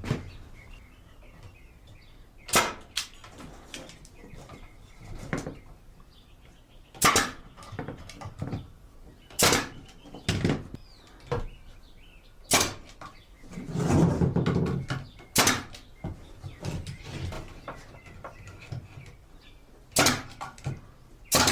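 Pneumatic brad nailer driving 2-inch brad nails into wood: about eight sharp shots a few seconds apart, with a longer, duller noise about two-thirds through.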